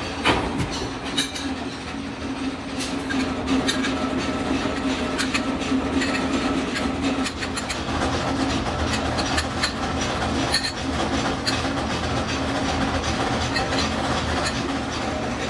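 Mechanical power press running with a steady hum, with frequent irregular metallic clinks as punched steel discs are handled and stacked.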